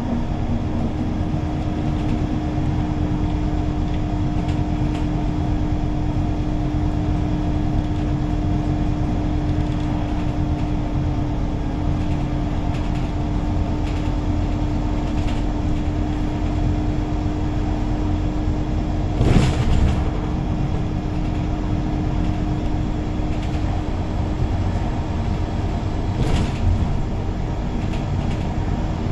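Scania K280UB city bus driving along, heard from inside the cabin: a steady engine and drivetrain drone with a constant hum. There are two short knocks, about two-thirds of the way in and near the end.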